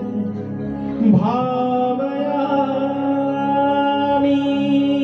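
A man sings a slow devotional-style melody into a microphone over a steady drone. About a second in, his voice slides up into long held notes.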